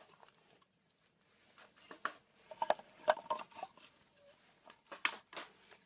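Pieces of split firewood knocking against each other and the metal grill as they are laid over a lit fire starter: scattered knocks, a quick cluster around the middle and two sharp knocks near the end.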